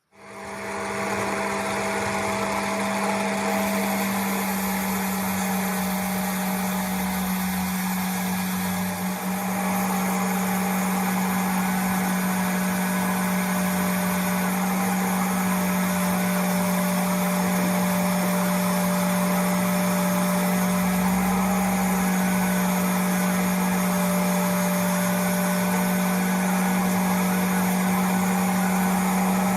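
Electric power tool motor starting up and running at steady speed with a constant hum and whine.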